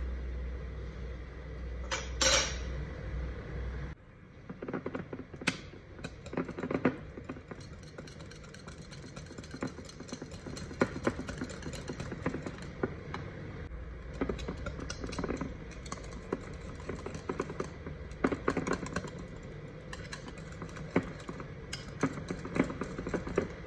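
Hand beater mixing custard and cream in a bowl: irregular clinking and tapping of the metal beater against the bowl. A low hum sits under the first four seconds.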